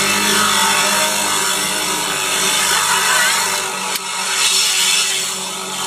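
Loud car-stereo music playing inside the moving car's cabin, heard as a dense, harsh wash of sound with a steady low note underneath.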